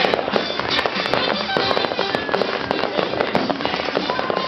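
Fireworks going off in a dense barrage, many crackling pops and bangs in quick succession, with music playing underneath.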